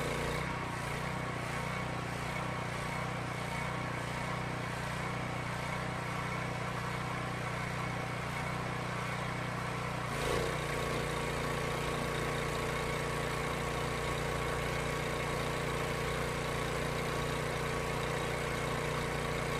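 Kohler engine of a Mi-T-M pressure washer running steadily at its governed high speed. About half a second in, the spray trigger is released and the engine's note changes as the load comes off. At about ten seconds the trigger is squeezed again, and the engine and pump take up the load with a brief rise in level.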